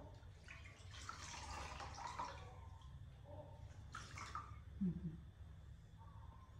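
Faint water splashing and trickling as a baby monkey is washed, in two spells, the second about four seconds in. A brief low-pitched sound comes just before five seconds in.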